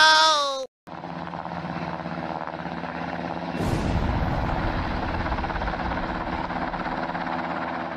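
Helicopter sound effect: steady rotor chop and engine noise, which grows louder and gains a deeper rumble about three and a half seconds in.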